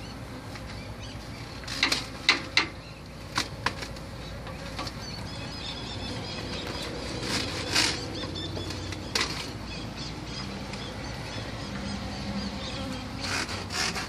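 Honey bees buzzing steadily around an exposed colony, with several short rustles as insulation and underbelly material are torn and pulled away by hand.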